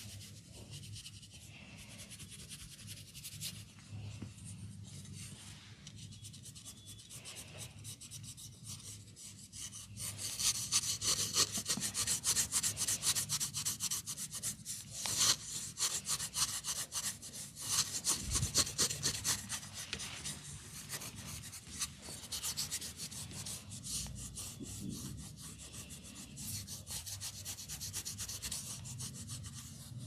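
Hands rubbing and scratching through hair and scalp close to the microphone, a fast, dense rustle that grows louder about a third of the way in and eases off again later.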